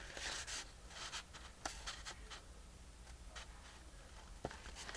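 Faint handling of paper on a work surface: a few scattered light taps and soft rustles as folded paper pieces are positioned.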